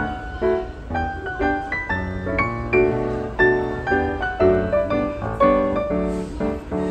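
Background instrumental music: a tune of short, piano-like keyboard notes over a low bass line.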